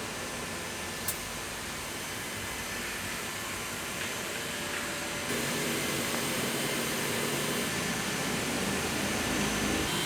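Steady machine hum and hiss of a body repair workshop, with a faint click about a second in; the noise grows a little louder, with a low steady hum added, about five seconds in.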